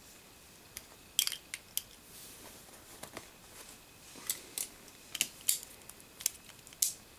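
Plastic and metal Beyblade Burst parts, the layer, forge disc, frame and driver, being handled and snapped together: a scattering of sharp clicks and light rattles, coming more often in the second half.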